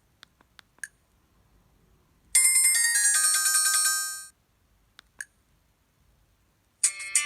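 Preloaded polyphonic ringtones playing through the small speaker of an Alcatel OT-660 flip phone: one bright chiming ringtone sounds for about two seconds and fades out, with a few short clicks or beeps before and after it, and another rhythmic ringtone starts near the end.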